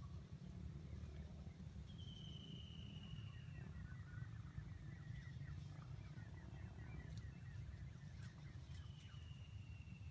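Faint outdoor ambience: a steady low rumble with birds calling over it. Two long, thin whistles each last about a second and a half and fall slightly in pitch, and a run of quick soft chirps comes between them.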